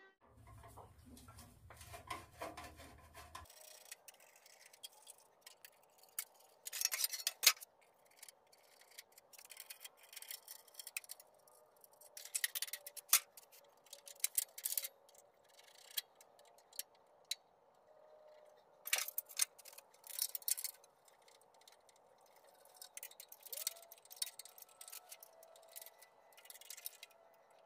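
Scattered clicks and metallic clinks of hand tools working on an air-cooled VW engine, faint and irregular. After the first few seconds the sound turns thin, with no bass.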